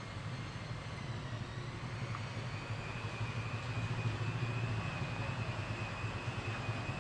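A steady low machine hum, with a thin high-pitched whine joining about two and a half seconds in and holding steady.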